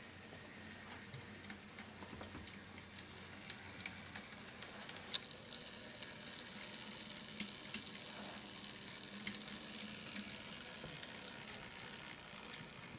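Model train rolling along the track toward the microphone: a faint, steady hiss of wheels and motor over a low hum, with scattered sharp clicks, the loudest about five seconds in.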